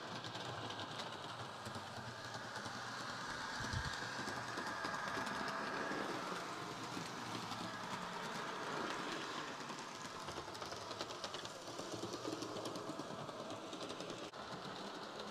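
Hawthorne Village HO-scale model diesel locomotive and car running along the track of a model railway layout: a quiet, steady whir of the small motor and wheels rolling on the rails.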